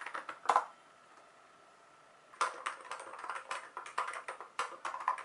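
Typing on a wired retro-style mechanical keyboard: a brief burst of keystrokes, a pause of under two seconds, then a quick run of clacking keystrokes.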